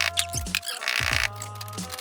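Background electronic music with a steady beat: repeated kick-drum hits, deep sustained bass notes and sharp snare-like hits.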